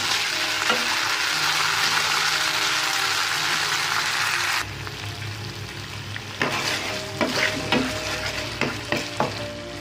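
Ketchup and chilli-garlic sauce sizzling in hot oil in a nonstick frying pan as it is stirred with a spatula. The sizzle drops away sharply a little under halfway through, leaving quieter scraping and knocking of the spatula against the pan.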